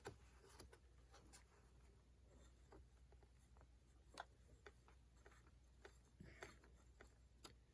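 Faint, scattered small clicks and light scratching as a screw on a driver is worked against a carbon fiber panel, trying to line up its screw hole on an RC truck's tube chassis.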